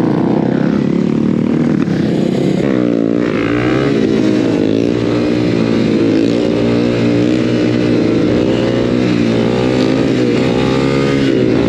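Honda CB300's single-cylinder engine with an aftermarket exhaust running hard while riding, its pitch rising and falling again and again from about three seconds in as the throttle is worked.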